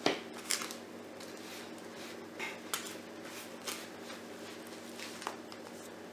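Crumbly brown-sugar and breadcrumb filling being scooped by hand from a plastic container: light rustling with a few sharp ticks and taps against the container, over a faint steady hum.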